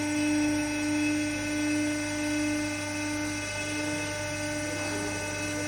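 PEL 3500A mill-size baler running as its compactor plate comes down, its motor giving a steady whining hum.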